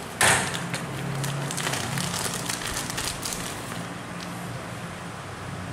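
Handling noise from a pole saw's bar, chain and cover being worked by hand: a sudden loud clatter just after the start, then light clicks and rattles of metal parts, over a steady low hum.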